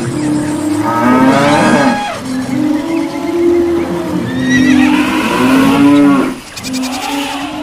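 A stampede of animal sound effects: long, low mooing calls from cattle, broken by two higher wavering calls that rise and fall, about a second in and again around five seconds in.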